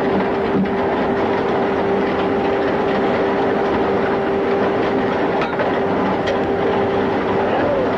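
Longwall shearer's pick-studded cutting drum turning at the coal face: a loud, steady mechanical rumble with a constant hum and a few faint clicks.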